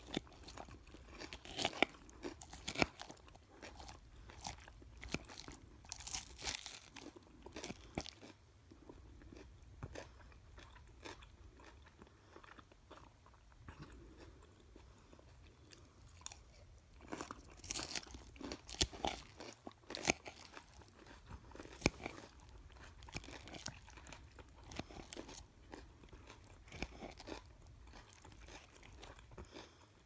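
Close-up chewing of a crisp dressed salad of lettuce, carrot and red cabbage, with irregular crunches. The crunching is busiest in the first eight seconds and again from about 17 to 24 seconds, and softer in between.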